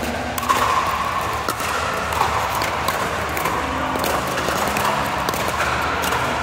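Pickleball paddles striking the plastic ball: a series of sharp pops at irregular intervals, over steady background noise.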